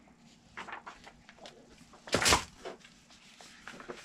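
Printed sheets and plans from a model ship kit being handled and shuffled: small rustles and taps, with one louder slap of paper a little past two seconds in.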